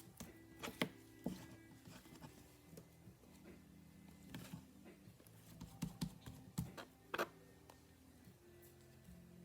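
Slime being squished and poked, giving a scattered series of short sticky pops and clicks, about six of them, strongest around the middle and near the end.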